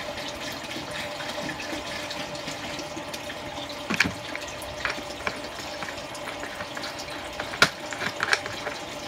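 Giantex portable washing machine running, with water swishing in its tub and a faint steady hum. Two sharp knocks come about four seconds in and again about seven and a half seconds in.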